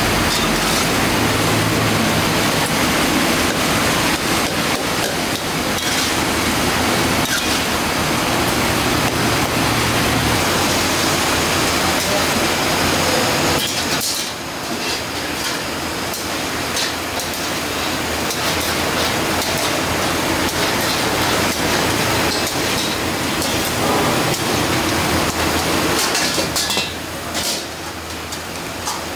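Mutton karahi sizzling in steel woks over gas burners, with metal tongs and ladles clinking and scraping against the woks as the meat is stirred.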